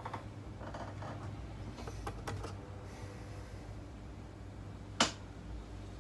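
Light clicks and handling noises from probing a laptop motherboard with meter probes, with one sharp click about five seconds in, over a steady low hum.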